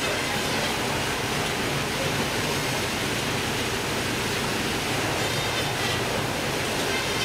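Steady machinery noise of a fish-processing line: conveyors and motors running, with a constant rushing hiss and a faint low hum.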